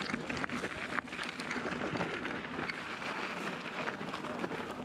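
Mountain bike rolling down a rocky dirt trail: tyres crunching over gravel and loose stones, with many small clicks and rattles.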